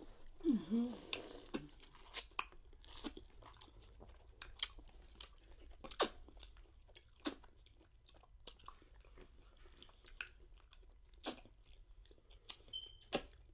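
Close-up chewing and wet lip smacks of people eating a seafood boil of shrimp, lobster and crab with their fingers, with irregular sharp smacking clicks and finger-sucking. A short vocal murmur comes about half a second in.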